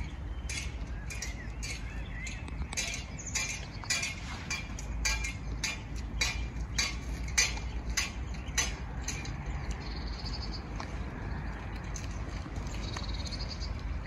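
Birds calling: a fast, irregular run of sharp call notes, about three a second, which thins out after about nine seconds, and two short high trills near the end.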